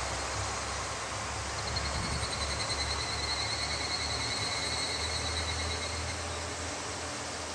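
KTR8000 diesel railcar running away into the distance, a low rumble that fades near the end, with insects trilling in a high pulsing tone over it.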